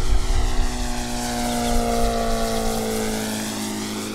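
Engine and propeller of a radio-controlled scale model Fairchild PT-26 on a low pass, the pitch falling steadily as it goes by and the sound slowly fading. A low rumble sits under it for the first three seconds.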